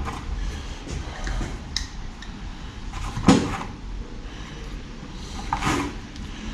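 Hand tools, among them screwdrivers, clicking and clattering as they are picked out of a tool case on the workbench, with a sharp knock about three seconds in and another rattle near the end.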